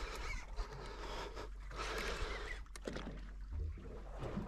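Water lapping and sloshing against the side of a boat hull, with a low steady rumble and a few small knocks.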